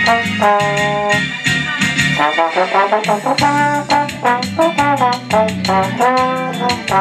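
Trombone playing a solo melody of held notes with a quick run of short notes about two seconds in, over a backing track of drums and bass played through a small amplifier.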